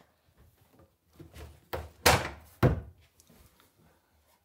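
Wooden wall-mounted tool cupboard being worked open by hand, its hinged front swinging up, with four knocks, the loudest about two seconds in.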